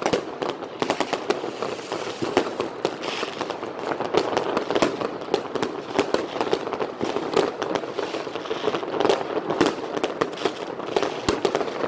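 Many fireworks and firecrackers going off at once: a dense, unbroken stream of sharp bangs over constant crackling.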